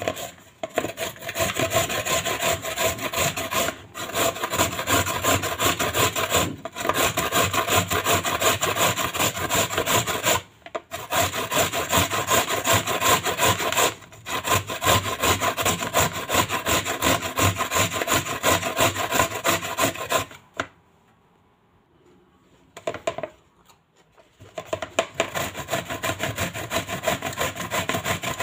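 Carrot rubbed fast back and forth over a flat stainless-steel hand grater: a dense run of scraping strokes, broken by a few short pauses. Near the end, after a gap of several seconds, the grating starts again on a zucchini.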